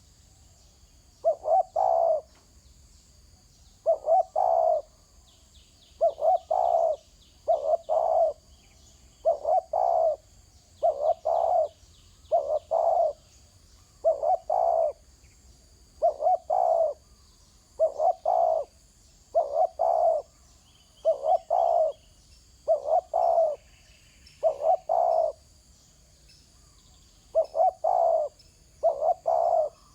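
A spotted dove cooing over and over: short phrases of two or three low coo notes, about one every one and a half to two seconds, with a short pause near the end.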